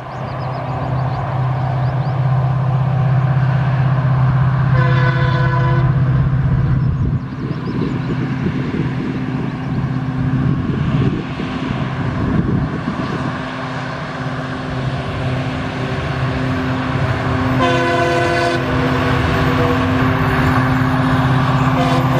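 WDP4 diesel-electric locomotive (EMD two-stroke engine) running under power as it hauls an express train at speed, with a steady, loud engine drone. Its horn sounds twice, each for about a second, roughly twelve seconds apart.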